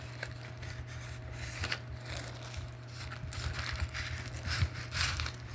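Packaging being handled during an unboxing: irregular crinkling, rustling and scraping of plastic and cardboard as items are taken out of the box, over a steady low hum.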